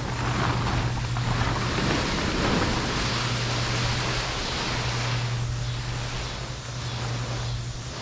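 Black plastic tarp being pulled off a garden bed and dragged across grass: continuous rustling, loudest in the first half and easing off near the end.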